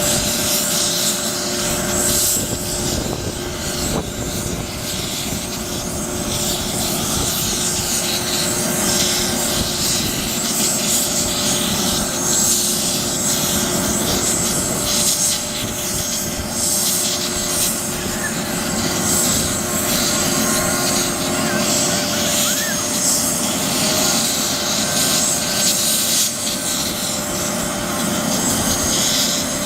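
Police helicopter JA22PC's turbine engines and rotor running steadily: a constant whine of several steady tones over a continuous rushing noise, with no spool-up or wind-down.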